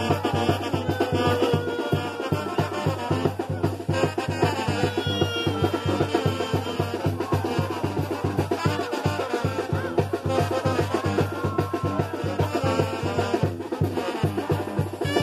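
Live Mexican banda (brass band) playing dance music for carnival dancers: brass melody lines over a steady, fast drum beat.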